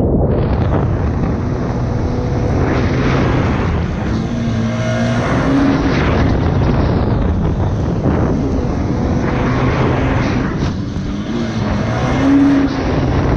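Yamaha FZR jet ski powered by a swapped-in GP1800 engine running hard at speed, heard from onboard, with water spray rushing past.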